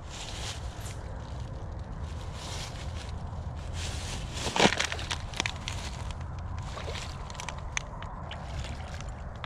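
Footsteps rustling and crunching through dry fallen leaves on a grassy bank, with one sharper crunch about halfway through, over a steady low rumble.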